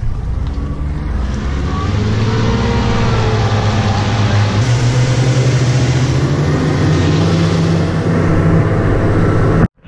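Twin 300 hp outboard motors driving a center-console boat, their note climbing over the first few seconds as they throttle up and then holding steady at speed, over heavy rushing wind and water from the wake. The sound cuts off suddenly near the end.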